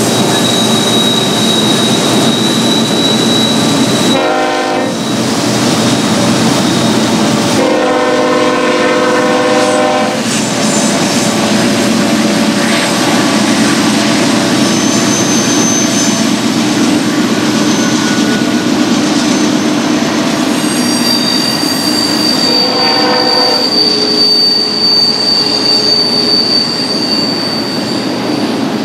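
Union Pacific intermodal freight train passing, with a steady rolling rumble of wheels on rail and a thin, high wheel squeal near the start and again through the second half. A locomotive horn sounds three times: a short blast about four seconds in, a longer one around eight seconds, and another around 23 seconds.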